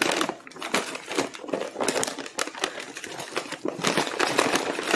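Brown paper bag rustling and crinkling as it is upended, with plastic-wrapped food packets sliding out and dropping onto a granite countertop in a run of quick, irregular clatters.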